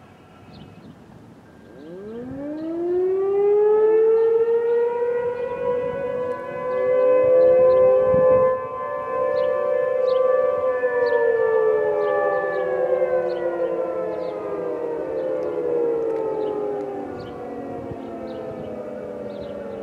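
Outdoor warning siren sounding its test signal in the distance. It winds up in pitch about two seconds in, holds a steady tone, then slowly winds down over the second half.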